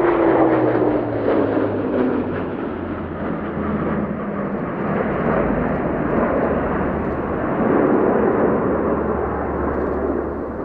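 Airbus A400M Atlas's four turboprop engines on a low, close pass: a propeller drone falls in pitch as the aircraft goes by, then a broad, steady engine rumble carries on and swells again as it flies off.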